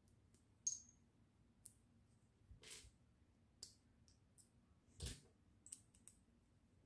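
Faint small clicks and rubs of hard plastic as a Lego minifigure's parts are handled in the fingers, about seven scattered clicks, with a duller knock about five seconds in.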